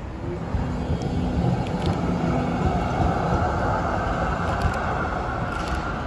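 Melbourne A-class electric tram running along street track, a steady rumble of steel wheels on rail under a low motor hum.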